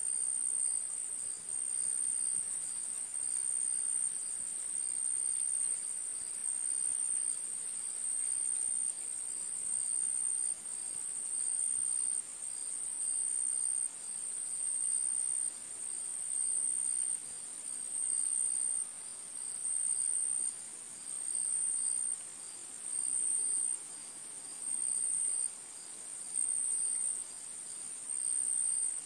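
High-pitched insect trills, cricket-like, each lasting about a second and repeating at an even pace about every one and a half seconds.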